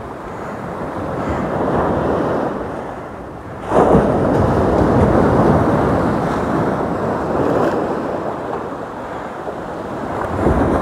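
Sea waves washing up the beach on an incoming tide, with wind rumbling on the microphone. A louder wave surges in about four seconds in and slowly dies away, and another builds near the end.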